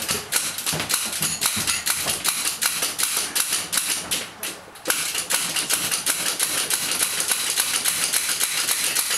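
Ratchet of a hand-cranked cable winch clicking rapidly, about five clicks a second, as it is worked to pull a heavy lathe along on rollers; the clicking breaks off briefly just past the middle, then resumes.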